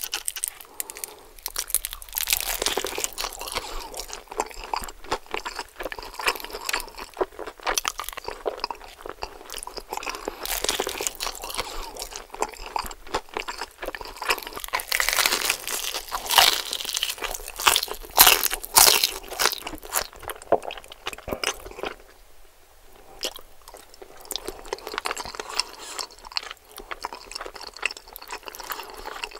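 Close-miked crunching and chewing of crispy Jollibee Chickenjoy fried chicken: the breaded skin crackles with each bite and chew. The crunching quietens in the last several seconds.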